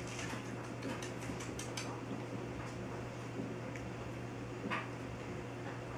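Scattered light clicks and taps, a few close together about a second in and one clearer tap near the end, over a steady low hum.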